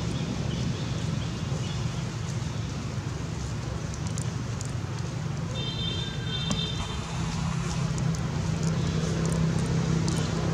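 A motor engine running steadily with a low hum that grows louder over the last few seconds. A short high-pitched call sounds about six seconds in.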